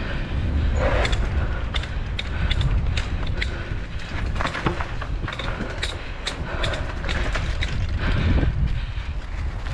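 Mountain bike rattling and creaking as it rides over a bumpy dirt trail, with many irregular clicks and knocks. Wind buffets the microphone underneath.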